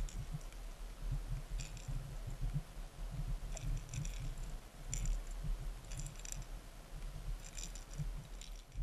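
Underwater audio from a submerged camera: a muffled low rumble of water moving against the housing, rising and falling, with short bursts of faint clicking or rattling about every second or two.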